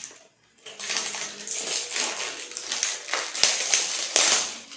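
Plastic shrink-wrap seal on the lid of a plastic whey protein tub being torn and peeled off by hand: continuous crinkling and crackling with a few sharper snaps, starting about half a second in.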